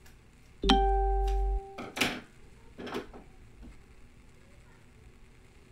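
A sudden steady tone with a low hum beneath it, lasting about a second, followed by two short ripping sounds about a second apart: painter's tape being torn from the roll.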